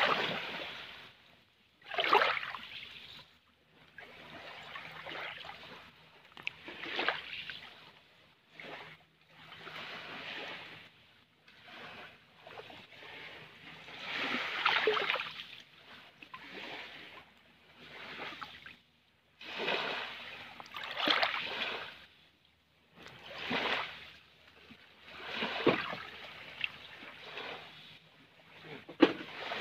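Small waves washing up over a gravel and shell shore, each swash rising and draining away, about every two to three seconds.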